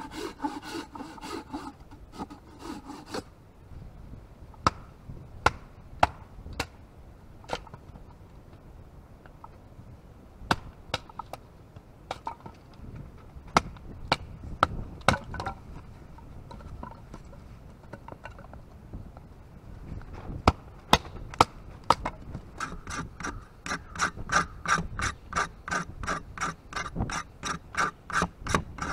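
Folding saw cutting a dead branch in quick back-and-forth strokes, stopping about three seconds in. Then scattered sharp wooden knocks as sticks are split into kindling, and near the end a fast, even scraping, about three strokes a second, as the back of the saw blade shaves a fatwood stick into tinder.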